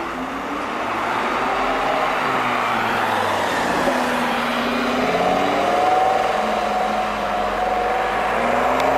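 Lamborghini Gallardo Spyder's V10 engine driving past close by and pulling away. Its pitch dips and then climbs about halfway through as it accelerates.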